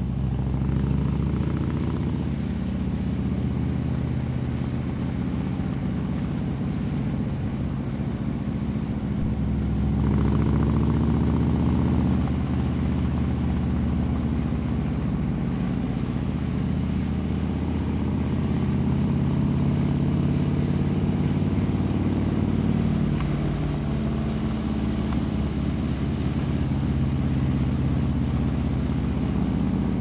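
Harley-Davidson V-twin motorcycle engine running steadily at low revs, with small rises in engine speed about ten seconds in and again near twenty seconds.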